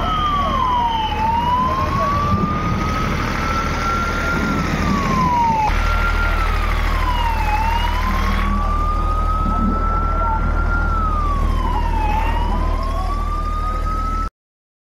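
Ambulance siren in a slow wail, its pitch climbing and falling again about every five to six seconds, over a steady low engine hum. The sound cuts off suddenly near the end.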